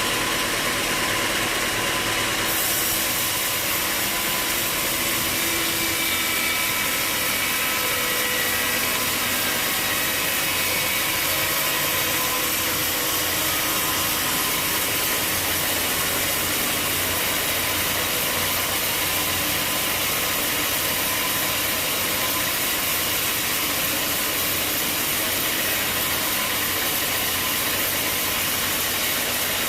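Sawmill machinery running steadily, a continuous engine-driven saw noise with faint steady tones; the sound turns brighter and hissier about two and a half seconds in.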